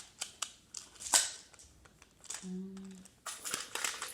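Plastic magnetic building tiles clicking and clattering as they are picked up and snapped together, with a sharp click about a second in the loudest and a quick run of clicks near the end. A person hums briefly in the middle.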